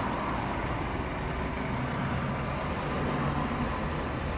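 Steady low hum and rush inside the cabin of a GMC Yukon Denali, the SUV sitting parked and running.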